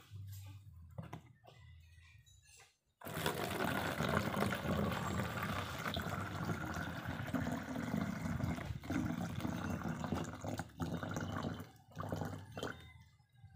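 Water being poured into a plastic bottle, a steady pouring and filling sound that starts suddenly about three seconds in and carries on, with a few brief breaks, until near the end.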